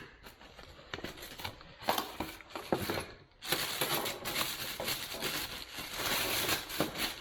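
Packaging being handled and unwrapped: a few scattered clicks and knocks, then continuous crinkling and rustling from about three and a half seconds in.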